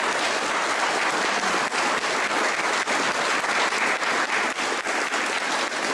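Audience applauding, many people clapping together at a steady level.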